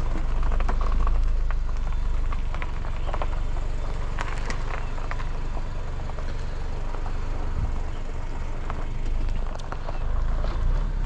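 Car moving slowly at low speed: steady low engine and road rumble, with scattered small clicks and ticks.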